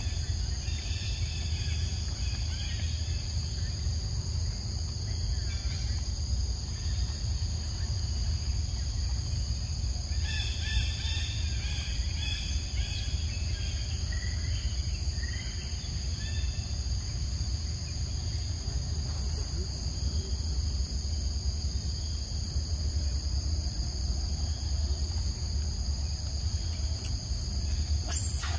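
Steady insect chorus with a continuous high buzz over a low rumble, with short bird chirps about a second in and again around the middle.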